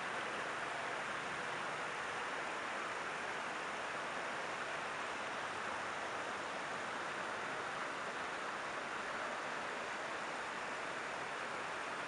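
Creek water rushing steadily over a shallow riffle, an even hiss with no breaks.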